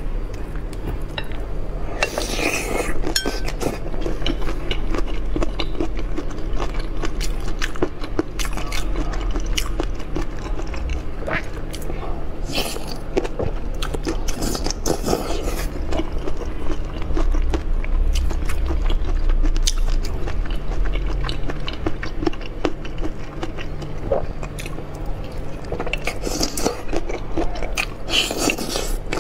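Close-miked biting and chewing of whole prawns coated in spicy chili sauce, pulled off bamboo skewers. Crisp crunching and wet crackling run throughout, busiest about two seconds in and again near the end.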